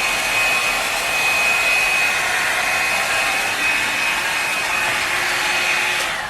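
Revlon One Step Hair Dryer and Volumizer hot air brush blowing steadily, a rushing of air with a thin high whine from its motor. It is switched off near the end, the whine dropping away as it stops.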